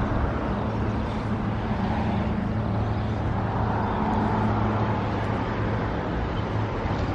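A steady, low engine hum with outdoor noise, holding at an even level throughout.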